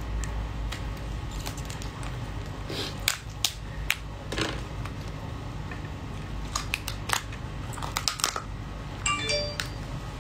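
Shell of a raw soy-marinated crab being pried open by hand: scattered crackling clicks and snaps over a steady low hum. A brief squeak comes near the end as the top shell comes away.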